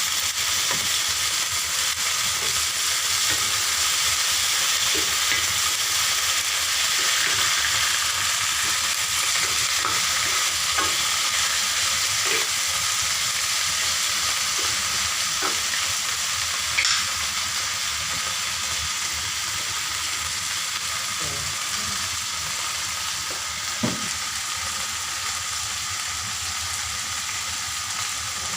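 Food sizzling steadily in hot oil in a cooking pan, with a couple of light knocks partway through.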